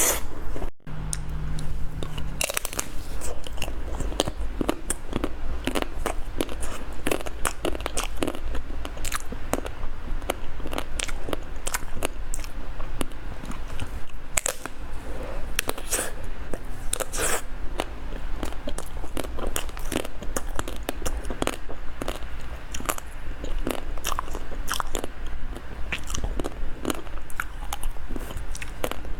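Close-miked biting and chewing of a Magnum ice cream bar, its chocolate shell cracking into many sharp crunches and snaps, over a steady low hum.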